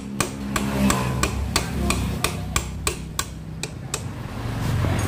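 Hammer blows on metal, evenly spaced at about three a second, over a low hum: work on replacing the worn rear pulley shaft bearings of a Suzuki Nex scooter's CVT.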